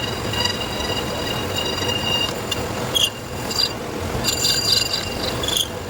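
Metal lathe turning a flange: the cutting tool squeals in several high tones that break off and restart a few times, over a steady hum.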